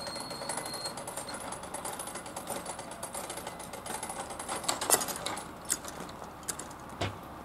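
Hand-operated mechanical level-crossing barriers (PZM2) being lowered: a rapid mechanical rattle of the barrier mechanism as the booms come down, ending in a sharp clunk about five seconds in as they reach the closed position. A few scattered knocks follow.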